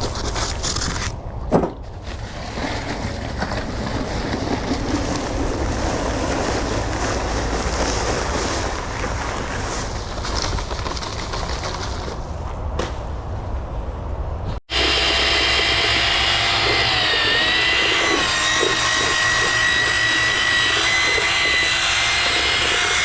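A rough, steady rustling noise for the first half, then after a sudden cut a power drill with a paddle mixer running steadily in a batch of concrete, its pitch dipping briefly under load now and then.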